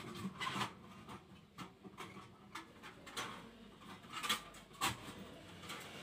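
Hands twisting and handling stranded copper wires being spliced together: irregular light rustles and small clicks.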